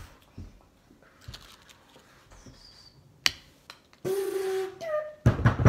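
Mostly quiet, then a single sharp click about three seconds in, a short steady hummed or voiced tone about a second later, and a quick run of dull knocks and thumps near the end.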